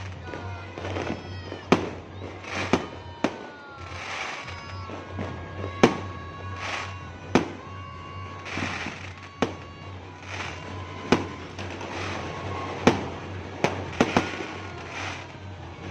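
Fireworks going off: sharp bangs about every second or so, with crackling between them.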